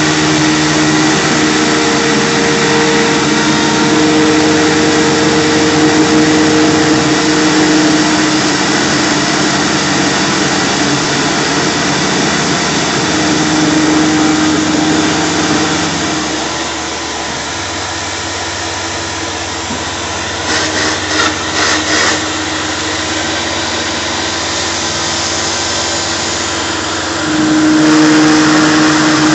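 Shop vacuum running with its hose held at the cutter, over a Tormach PCNC 1100 CNC mill's spindle milling a UHMW plastic disc. A steady loud whir with a humming tone that comes and goes, dipping for a few seconds past the middle and rising again near the end.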